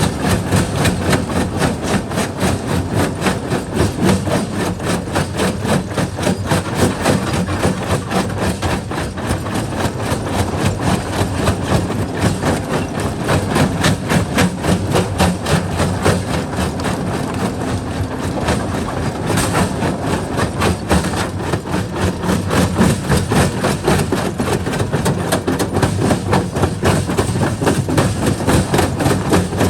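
Quarry jaw crusher crushing rock: a continuous clatter of rapid, uneven knocks and cracks over the steady low hum of the machine's drive.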